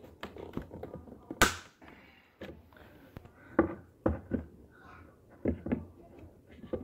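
Diagonal cutters snipping a nail in a couch's wooden frame: one sharp, loud snap about a second and a half in, then several quieter clicks and knocks as the cutters work on more nails against the wood.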